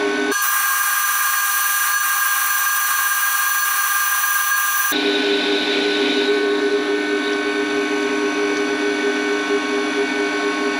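Warco WM180 mini lathe running steadily with a whine while a CCGT carbide insert takes a 0.5 mm deep cut in aluminium.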